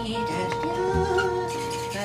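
Background music with long held notes and a wavering melody line over them.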